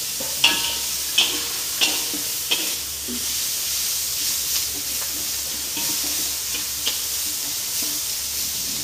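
Food sizzling in a hot aluminium wok as it is stir-fried near the end of cooking, with a spatula scraping and clicking against the pan. The clicks come about every two-thirds of a second for the first few seconds, then only now and then.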